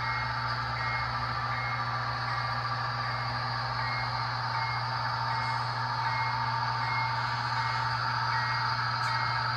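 Sound-decoder audio from an HO-scale Budd RDC model, played through its small onboard speaker: a steady diesel engine drone with a bell striking about every three quarters of a second as the railcar runs slowly.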